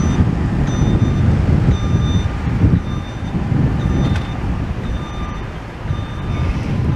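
Reversing alarm on demolition plant beeping about once a second, each beep about half a second long, over a loud low rumble of heavy machinery.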